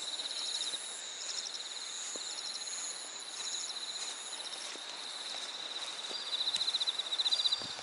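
Several insects chirping in high, evenly pulsed trills that overlap, with short repeated chirps above a steady trill; one rapid trill grows louder near the end.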